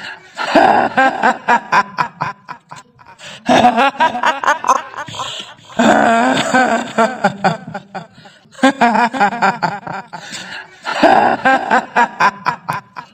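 A kuntilanak ghost's cackling 'hihihi' laugh in a woman's voice, in about five long bursts of rapid pulses with short gaps between them.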